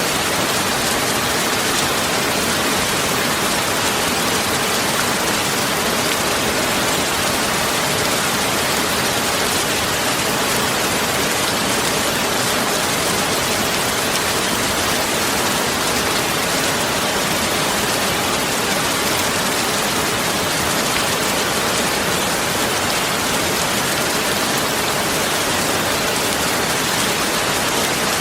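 Steady, unchanging hiss like heavy rain, spread evenly from low to high, with no separate drops or events.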